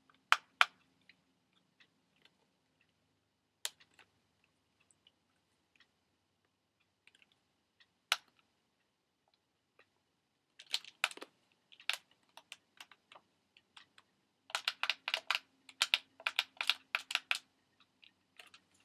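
Buttons on a plastic toy alarm clock being clicked: scattered single clicks, then a quick run of repeated clicks near the end.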